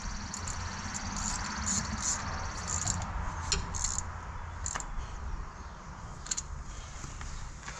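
Steel wrench clinking on the jam screw and gland of a hydraulic steering cylinder as it is tightened: a dozen or so irregular, sharp metallic clicks and taps over a steady low hum.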